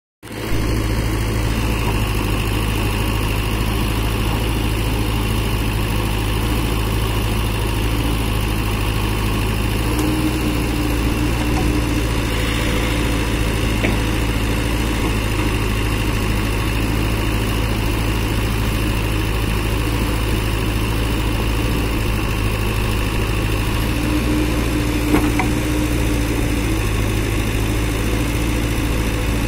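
JCB 3DX backhoe loader's diesel engine running steadily. Twice a higher steady tone joins it for a few seconds, and there is one short knock near the end.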